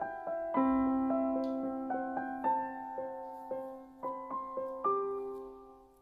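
Background music: a soft solo piano melody of single struck notes, ending on a last chord about five seconds in that fades out.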